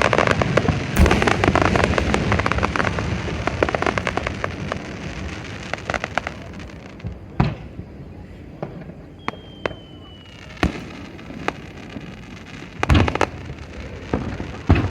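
Aerial fireworks: a dense run of crackling and popping for the first several seconds, thinning out, then a few separate sharp bangs spread across the second half.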